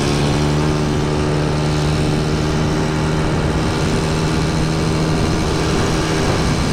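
A vehicle's engine running at a steady speed, with a steady rushing noise of travel underneath.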